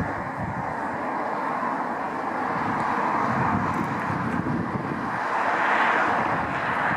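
Diesel passenger train running out of a tunnel: a steady noise that swells about five seconds in.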